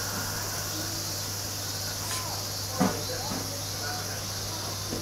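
Steady high-pitched insect chirring over a low hum, with a single knock on the wooden staircase about three seconds in.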